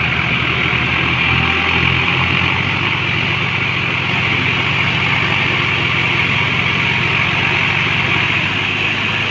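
Massey Ferguson 246 Dyna Track tractor's diesel engine running steadily under load while the tractor drives a rear rotary tiller through a wet, muddy field.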